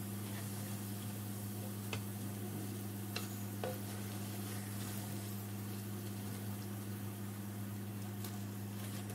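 Breaded chicken nuggets sizzling as they deep-fry in hot oil in a pan, with a few light clicks of a ladle against the pan about two to three and a half seconds in. A steady low hum runs underneath.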